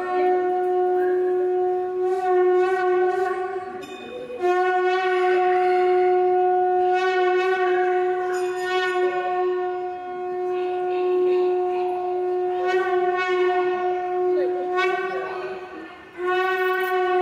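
Conch shell (shankh) blown for temple aarti in long, steady blasts on one pitch, broken briefly about four seconds in and again near the end.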